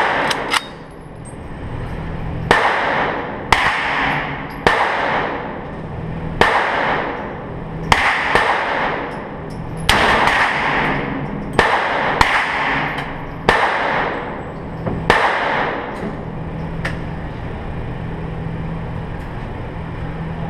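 M1 carbine firing semi-automatic .30 Carbine rounds: about ten shots spaced one to two seconds apart, each ringing out with a long echo off the indoor range's walls. After about fifteen seconds the shooting stops and a steady low hum remains.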